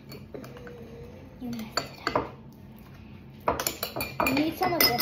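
Utensil clinking and scraping against a bowl as slime is stirred: a few separate clinks, then a busier run of them near the end.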